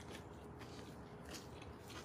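A person chewing a mouthful of crisp lettuce salad: soft, irregular crunches.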